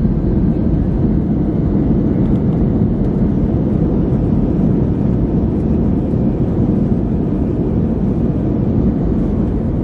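Steady low rumble inside the cabin of an Airbus A321 rolling out on the runway just after landing.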